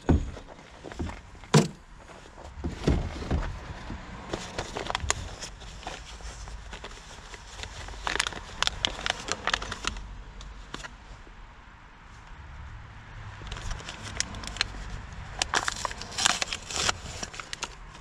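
Scattered plastic clicks and rustling as gloved hands handle car headlamp parts: one sharp click near the start, then clusters of small clicks partway through and again near the end.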